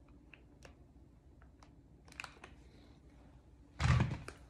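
A stainless steel saucepan set down on a kitchen counter with a single loud thud near the end, after a few faint clicks and light scrapes of utensils.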